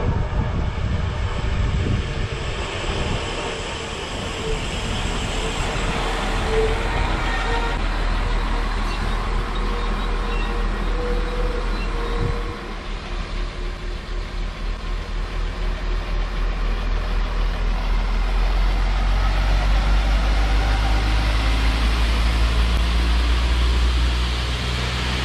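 Koleje Dolnośląskie SA135 diesel railcar running into the platform with a thin steady whine as it slows. It then stands with its engine running low, and its diesel engine opens up, growing louder and deeper for several seconds as it pulls away.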